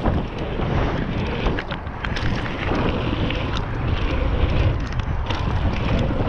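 Wind buffeting an action camera's microphone as a Nukeproof mountain bike rolls fast down a dirt jump line, a steady rush with knobby tyres rumbling on the hardpacked dirt and a few light rattles from the bike.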